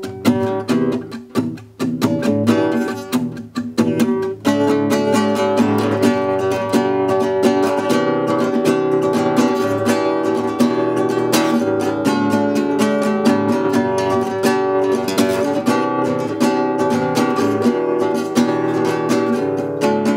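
LAG acoustic guitar played by hand: a few separate strummed and plucked chords with short pauses for about the first four seconds, then steady, continuous strumming.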